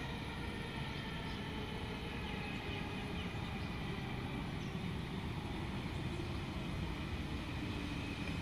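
Sydney Trains S set double-deck electric train pulling into the platform: a steady rumble with a faint high whine that fades away.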